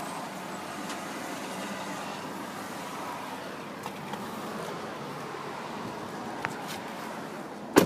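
Steady running noise of a vehicle, with a few faint ticks and one sharp click just before the end.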